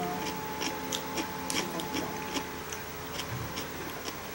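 Close-up eating sounds of someone chewing a meal with chopsticks: irregular small clicks and ticks, two or three a second.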